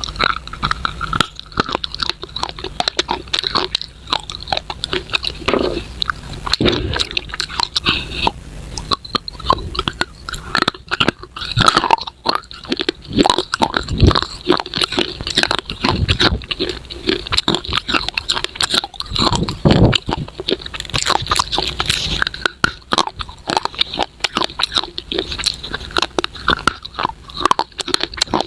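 Close-miked biting and crunching of baked clay pieces, a dense run of sharp crackles and snaps with occasional deeper chewing thuds.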